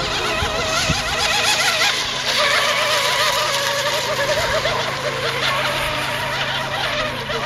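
The motors of several radio-controlled racing hydroplanes whining at speed, their pitch wavering up and down as the boats race and turn around the course.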